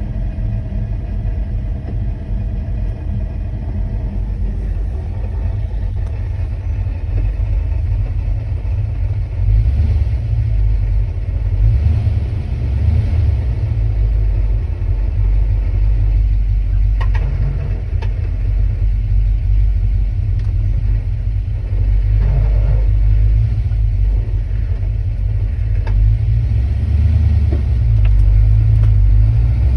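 1979 Camaro Z28's V8 engine running with a steady low rumble, with a few short clicks and a brief wavering squeal in its later part.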